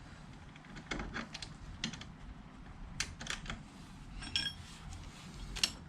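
Metal hand tools, an Allen key and wrench, clicking and tapping against a bolt on a scooter's footpeg mount in irregular light clicks, with a short metallic ring about four seconds in.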